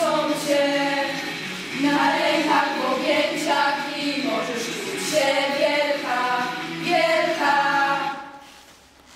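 A group of female voices singing together in harmony, in sustained phrases; the song ends and dies away about eight seconds in.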